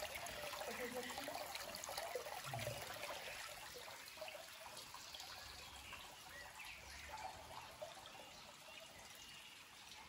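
Spring water trickling and running in a steady, fairly faint stream.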